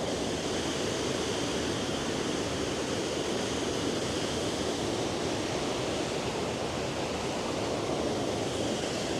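Kakabeka Falls, a large waterfall, rushing with a steady, even roar of falling water.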